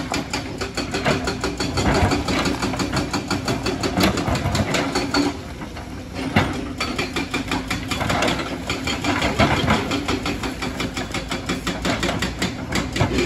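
Kobelco crawler excavator's diesel engine running steadily with a rapid clatter while the bucket digs and scrapes into a rocky soil bank, with scattered knocks of rock. The sound dips for about a second near the middle.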